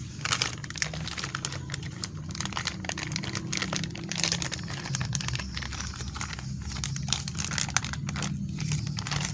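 Thin plastic packaging bag crinkling and rustling in the hands as a new brush-cutter throttle handle is unwrapped, with many small irregular crackles.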